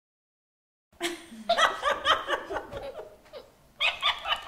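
Bursts of high-pitched laughter in quick pulses, starting about a second in after silence, fading, then breaking out again near the end.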